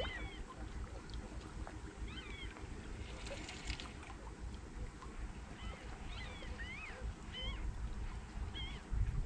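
Birds calling outdoors: many short rising and falling cries scattered throughout, over a steady low rumble of wind on the microphone.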